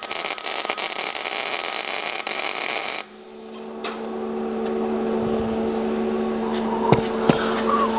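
Longevity Migweld 140 MIG welding arc crackling steadily as a short tack weld is laid, stopping abruptly about three seconds in. A steady low hum follows, with a couple of small clicks.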